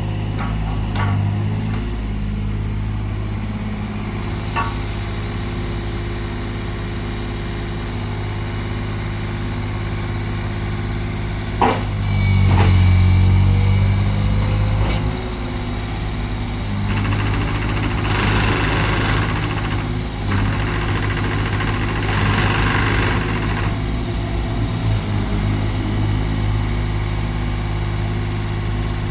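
Takeuchi mini excavator's diesel engine running steadily. About twelve seconds in there is a sharp knock and the engine briefly gets louder; later come two short stretches of hiss.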